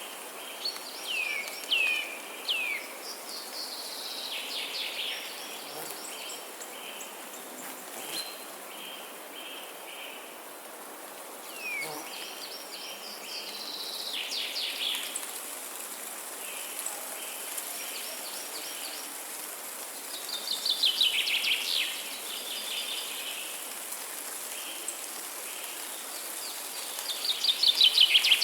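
Forest ambience of songbirds singing in short, repeated phrases of quick chirps and downward sweeps, loudest around 21 seconds in and again near the end. Underneath runs a steady hiss with a faint pulsing chirr.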